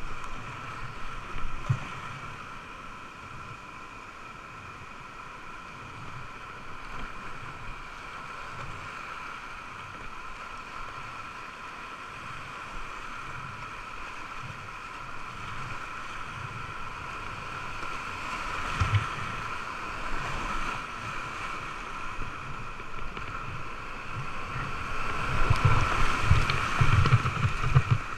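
Whitewater rushing around a kayak, heard through an action-camera housing as a steady muffled roar, with paddle strokes splashing and irregular low thumps. It grows louder and rougher near the end as the kayak runs into a bigger white rapid.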